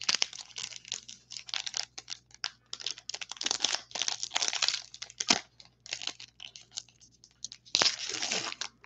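Foil trading-card pack being crinkled and torn open by hand: a run of irregular crackles and rips, with a louder tear near the end.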